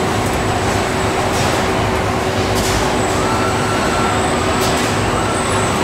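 Factory noise of a car-body assembly line worked by industrial robots: a steady machinery drone and hum, with short hisses a few times.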